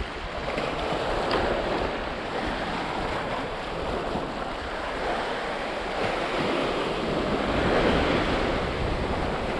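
Sea swell washing and surging against a rock ledge, with wind buffeting the microphone; the wash swells a little louder about three-quarters of the way through.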